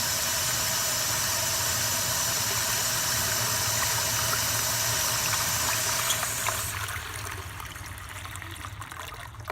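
Hose water rushing into a 1992 Universal-Rundle Atlas toilet at mid pressure: a steady rush that dies away from about six seconds in.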